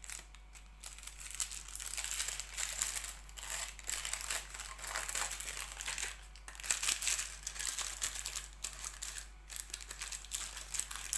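Paper muffin liners crinkling and rustling as they are pulled apart and pressed into the cups of a metal muffin tin, in uneven spells with short pauses.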